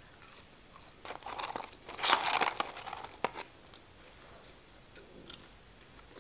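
A person chewing French fries close to the microphone, in irregular bursts of mouth sounds that are loudest about two seconds in and fade to faint ticks after about three and a half seconds.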